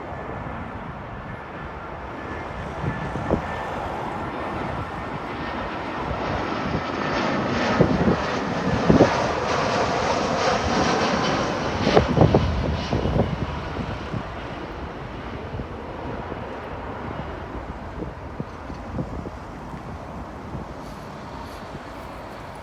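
Engine noise passing by: it builds to its loudest around the middle and then fades away.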